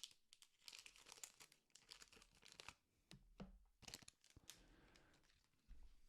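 Faint rustling and scraping of trading cards being handled and slid over one another, with short clicks and crinkles.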